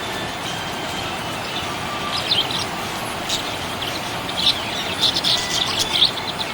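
Budgerigar chirping in short, high bursts that come more thickly in the second half, over a steady background hiss.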